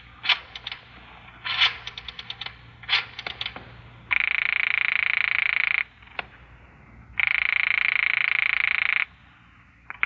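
Telephone sound effect: a rotary dial clicking back through several digits in quick trains of pulses, then two long buzzing ring tones heard in the earpiece, and a click at the very end as the call is answered.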